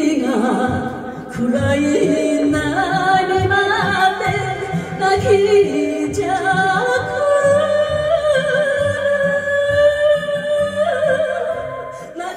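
A woman singing an enka ballad into a microphone over a karaoke backing track, holding long notes with vibrato over a steady beat.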